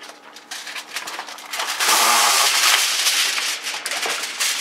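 Aluminium foil crinkling as it is pressed and folded down over the rim of a cooking pot. It starts with faint crackles and becomes a loud, dense crackling rustle from about two seconds in.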